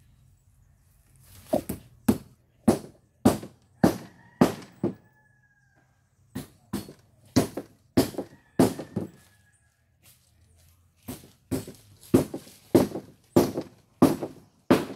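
Hammer blows on wooden formwork boards, struck steadily a little under two times a second in three runs with short pauses between.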